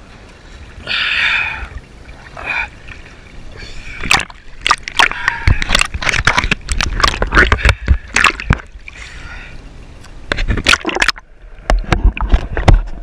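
Sea water splashing and sloshing around an action camera at the surface. Bursts of sharp crackling splashes come from about four seconds in and again near the end, as the camera dips under the waves.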